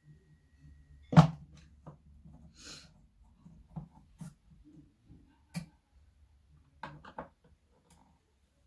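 Clicks and knocks of hand tools and parts on a loudspeaker cabinet as it is being taken apart. The loudest is a sharp knock about a second in, with a short scraping hiss near the three-second mark and a quick pair of clicks near the end.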